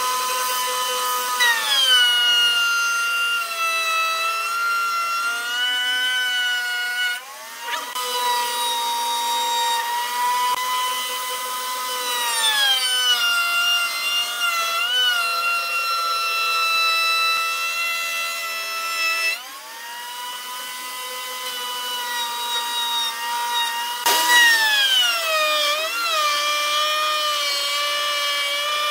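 Router mounted under a router table, its high motor whine sagging in pitch each time the spinning bit bites into the hardwood block and climbing back as the load eases, with the rasp of the bit cutting wood. The pitch drops under load three times.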